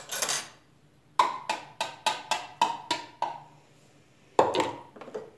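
A short splash of liquid into the stainless steel bowl of a Kenwood Cooking Chef kitchen machine, then a run of about eight sharp ringing taps on the bowl's rim, as a container or spoon is knocked out to empty it, and one more knock near the end.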